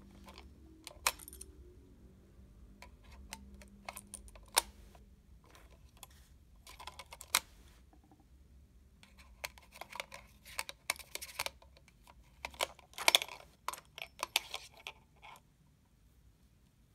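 Scattered clicks and light rattles of a plastic hotel key card and its metal key tag and ring knocking against a wall-mounted card slot as the card is put in to switch on the room's power. A few clicks stand out louder, and the clicking stops shortly before the end.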